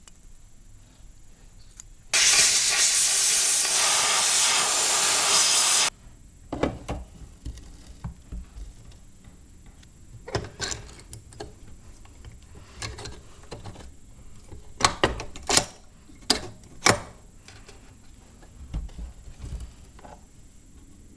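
A loud, steady hiss of pressurised air or spray starts about two seconds in, lasts about four seconds and cuts off sharply. Light metal clicks and knocks follow as a small-engine carburetor is handled and fitted back onto the engine, a few of them sharper near the middle.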